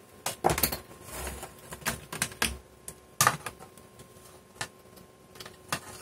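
Irregular plastic clicks and knocks, about nine over six seconds, from an Ethernet cable being unplugged from a laptop and its plug and cable handled.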